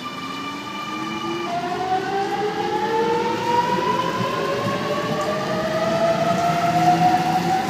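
Sydney Trains Millennium (M-set) electric train pulling away, its traction inverters whining. Several steady tones step up in pitch about a second and a half in, then rise slowly together as the train accelerates.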